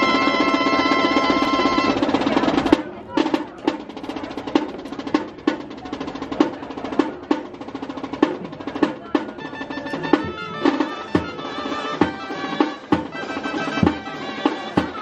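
Gaita (Navarrese double-reed shawm) and snare drum playing traditional dance music. The gaita holds a long note over a drum roll, then the drum carries on alone with accented strokes and rolls. The gaita melody comes back in about ten seconds in.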